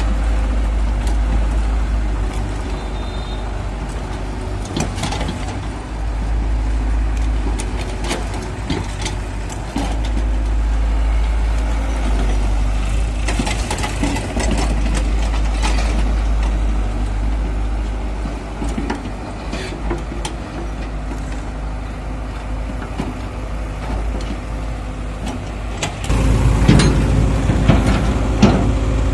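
Diesel engines of a Hyundai crawler excavator and a farm tractor running steadily, with scattered knocks and clanks as the excavator works soil into the trolley. About 26 seconds in, a tractor engine close by gets louder.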